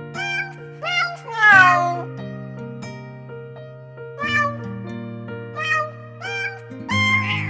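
Background music of sustained chords with cat meows repeating over it, about eight short meows, the longest one, falling in pitch, about a second and a half in.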